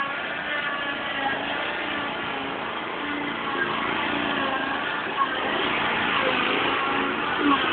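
Small engine of a ride-on lawn mower running continuously, getting a little louder toward the end.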